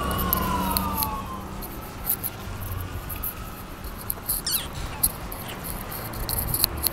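An emergency-vehicle siren wailing, its pitch sliding down and fading out about a second and a half in. After it there is a low steady rumble with light scattered ticks.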